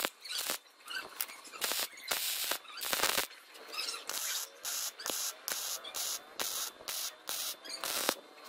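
Wire-feed (MIG) welder arc crackling and hissing in a series of short bursts as joints in square steel tubing are tack- and stitch-welded, with a quicker run of short pulses about two a second in the second half.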